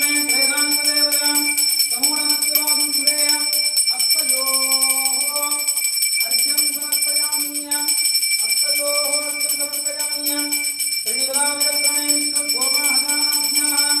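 A brass puja hand bell (ghanta) rung continuously, its high ringing steady under a melodic Sanskrit chant sung in long held notes, phrase after phrase with short pauses.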